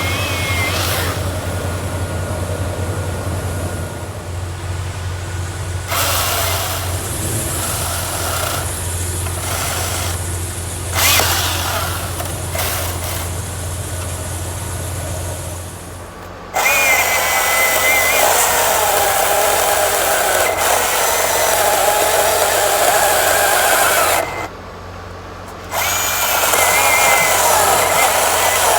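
Chainsaw running and cutting in several long stretches, with brief drops in level between them. A steady low drone runs underneath for the first half, then stops.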